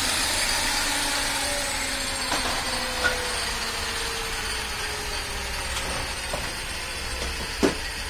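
A power tool's motor coasting down after use, its whine slowly falling in pitch and fading, with two light knocks, the louder one near the end.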